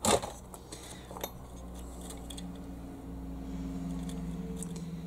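Small plastic clicks and rustles as a circuit board and its wires are handled, loudest right at the start with another click about a second in. From about two seconds in, a faint steady low hum runs underneath.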